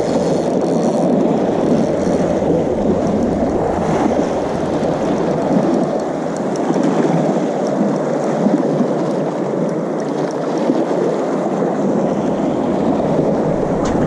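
Sea waves washing and churning among breakwater tetrapods: a loud, steady rushing wash with no let-up.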